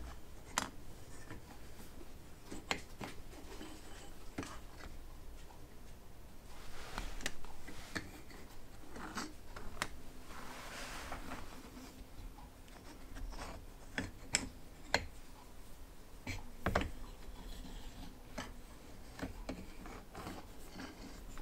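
Irregular small clicks and light rubbing from a hand-worked aluminium test mock-up of a model V-twin engine's crank and conrods, as its parts are moved and knock lightly against each other.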